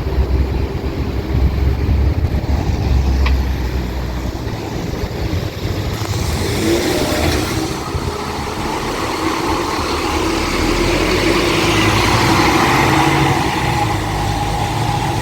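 Scania K310UB bus's five-cylinder diesel engine running with a low rumble, then from about six seconds in the engine note and road noise build up and grow gradually louder as the bus gets under way.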